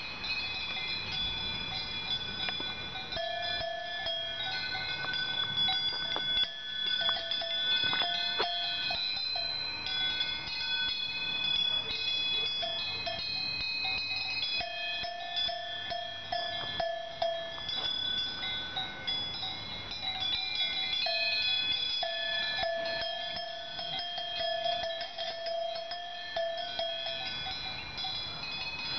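Several cowbells on grazing cattle ringing without a break, their different pitches overlapping and coming and going as the animals move.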